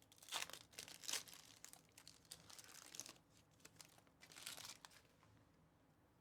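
Faint crinkling and tearing of plastic or foil wrapping as a box and packs of trading cards are opened, in short separate rustles that die away near the end.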